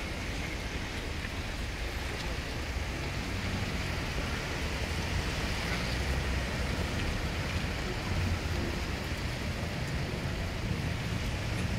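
Heavy articulated truck moving slowly off, its diesel engine a low steady rumble under a constant hiss of street noise.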